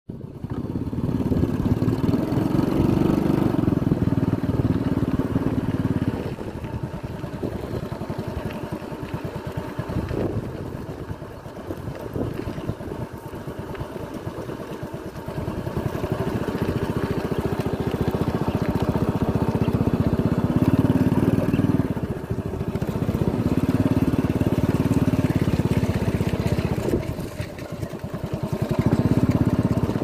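Motorcycle engine running at low speed, growing louder for a few seconds at a time and then easing back, several times over.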